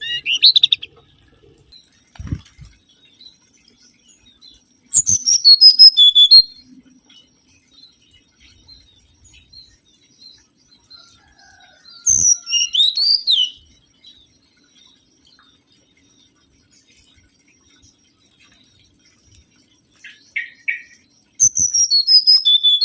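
Mangrove whistler singing: four loud phrases of quick high whistled notes, each about a second and a half long, separated by several seconds of quiet. The notes drop in pitch through each phrase, and the phrase at about 12 seconds ends in a swooping note. A faint low thump comes a couple of seconds in.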